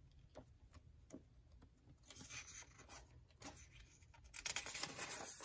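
Faint rustling and scraping of a paper flash card being handled and flipped over on a ring-bound stack of index cards, loudest about four and a half seconds in.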